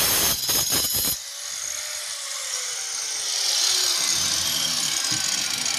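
INGCO angle grinder with a diamond disc cutting into stone. About a second in the grinding noise stops abruptly as the disc leaves the cut, and the motor runs on with a whine that slowly falls in pitch.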